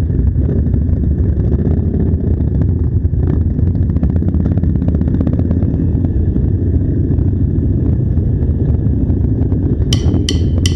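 Harley-Davidson Sportster V-twin engines running as the group pulls away at low speed, heard from a camera mounted on one of the bikes. A guitar music track comes in near the end.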